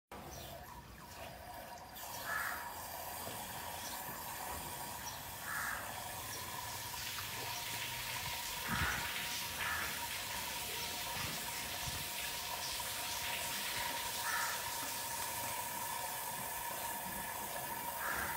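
Water hissing steadily into a stainless steel automatic cattle drinking bowl as cows drink, its valve refilling the bowl. A brief knock about nine seconds in.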